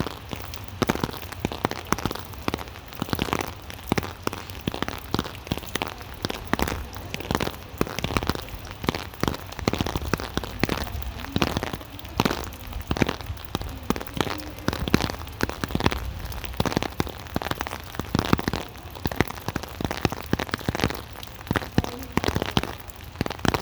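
Rain falling: a dense, irregular patter of drops hitting a surface, over a steady low rumble.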